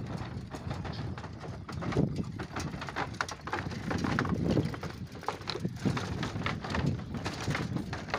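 Footsteps and a pushed bicycle on a bamboo footbridge: irregular hollow knocks and clattering from the loose bamboo poles of the deck.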